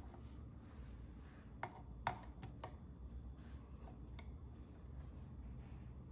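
Wicked Edge guided knife sharpener at work on a kitchen knife: faint rasping strokes of its new stones across the blade, with a run of sharp light clicks about two seconds in and single clicks near four and five seconds, as the stone arms knock against the clamp and blade.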